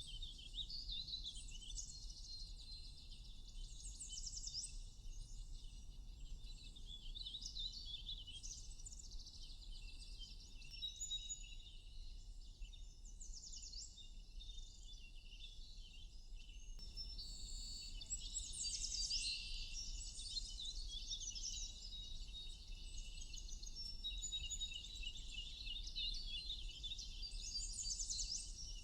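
Many small songbirds chirping and trilling at once, quick high calls overlapping almost without pause, over a constant low rumble.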